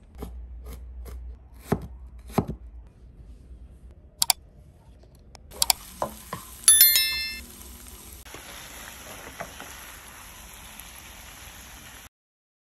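A knife cutting through a block of tempe onto a wooden board in a run of sharp strokes, then a frying pan sizzling with a steady hiss in the second half. A short ringing chime sounds near the middle.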